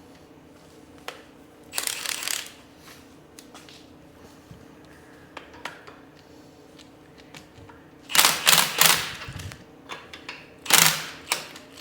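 Hand ratchet wrench clicking in three short bursts of strokes, turning the nut on a threaded-rod puller to pull a bearing off a truck axle spindle.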